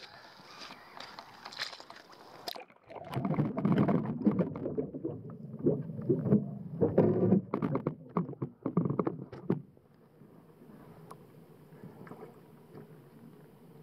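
Muffled water noise and knocks picked up by an underwater camera in its housing on a bait boat moving through shallow water: a hiss with clicks at first, then from about three seconds in louder low rumbling and knocking for several seconds, settling to a faint steady hum near the end.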